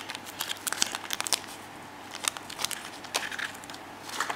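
Small clear plastic packet from a surprise egg crinkling and crackling as it is handled, a run of soft irregular crackles.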